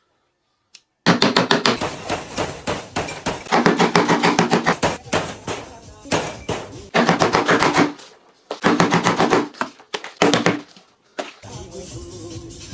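Rapid knife chopping on a cutting board, street-food style: several bursts of fast strikes, each lasting one to two seconds with short pauses between, starting about a second in.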